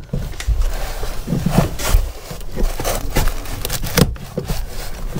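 Hand tool scraping and prying at the rotten wood at the top of a wooden boat frame: irregular scrapes, clicks and small knocks.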